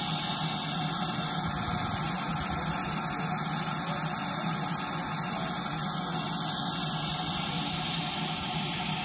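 Ex-GWR 57xx pannier tank locomotive 7714 standing with steam hissing steadily as it escapes from the engine.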